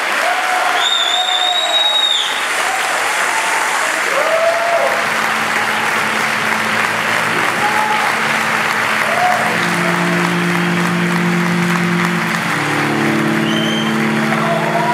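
Audience applauding steadily, with scattered cheering voices and one long high whistle about a second in. From about five seconds in, music of slow held chords comes in under the applause.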